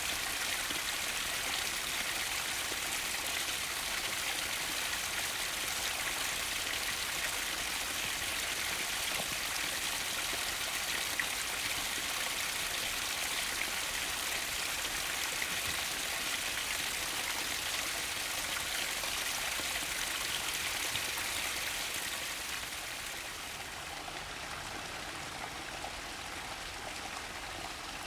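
Mountain stream flowing, a steady even rush of water. About 22 seconds in it becomes slightly quieter and duller.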